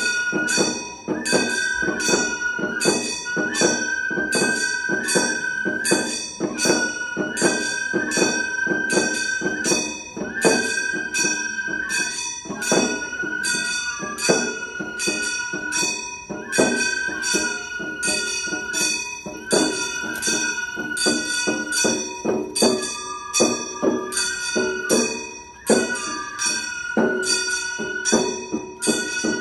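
Gion bayashi festival music: a transverse bamboo flute (fue) plays long held notes in phrases of about two seconds, over a steady rhythm of small hand-held gongs (kane) struck with a bright metallic ring.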